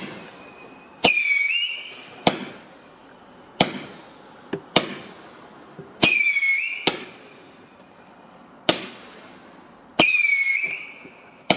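A 100-shot firework cake firing: about ten sharp bangs, irregularly spaced about a second apart. Three of the shots carry a whistle that dips in pitch and lasts under a second.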